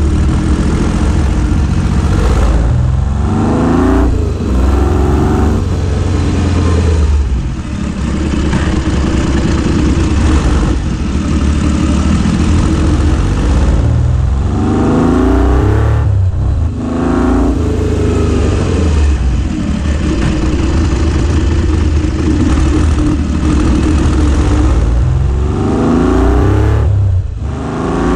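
BSA Rocket III's 740 cc three-cylinder engine, heard close to its exhaust silencer while the motorcycle is ridden. It pulls up three times with a rising pitch and drops off briefly after each.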